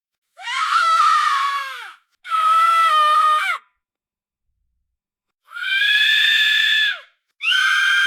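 Toddler screaming: four high-pitched screams of about a second and a half each, separated by short silences, the first two dropping in pitch at the end.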